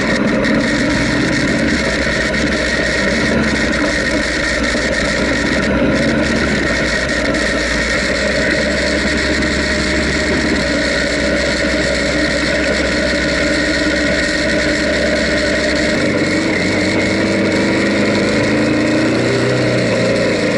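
Honda Africa Twin's 998 cc parallel-twin engine running steadily under way, picked up by a camera mounted on the bike, with a constant rush of wind and road noise. The low engine note shifts a little about three-quarters of the way through.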